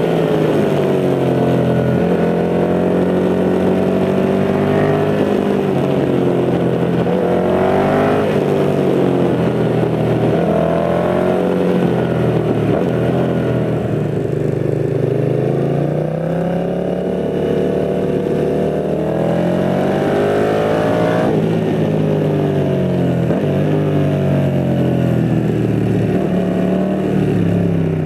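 Yamaha MT-07's parallel-twin engine heard from the bike while riding, through an aftermarket Mivv GP carbon exhaust, its pitch repeatedly rising under throttle and falling as the throttle closes, over and over through a series of bends.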